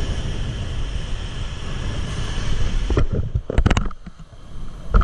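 Rough surf breaking and washing up the beach, with wind buffeting the microphone as a steady rumbling rush. About three seconds in, a few sharp knocks and rubs of something handled right against the microphone, then the rush drops away briefly.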